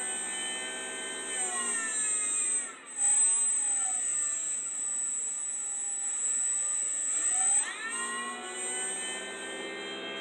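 Home-built 3D-printed axial-flux brushless DC motor (8 magnets, 6 coils) running on a sensorless hobby speed controller, giving a whine of many pitches. The pitch holds at first, sags, dips out briefly near three seconds, falls and climbs back as the speed changes, then holds steady near the end. A constant high-pitched tone sits above it.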